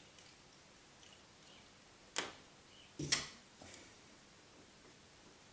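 A blade being worked under the edge of a glued-on plastic rear spoiler on a car tailgate: two sharp clicks about a second apart, the second heavier, with a few faint ticks around them.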